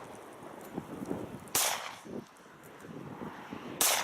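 Two pistol shots from a .45 ACP Colt 1911, about two seconds apart, each a sharp crack with a short echo.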